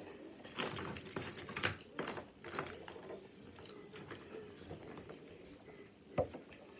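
Quick crisp clicks and crackles of crab-leg shells and an aluminium foil pan being handled, busiest in the first few seconds, with one sharp click near the end.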